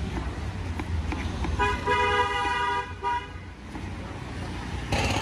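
A vehicle horn honking in street traffic, sounding for about a second and a half with short breaks, over a steady low rumble of passing traffic. A brief rush of noise comes near the end.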